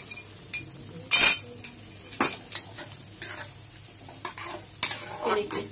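A steel spatula scraping and knocking against a metal kadai as a thin arrowroot slurry is stirred into a hot sauce, thickening it into gravy, with a light sizzle underneath. A handful of separate scrapes, the loudest about a second in.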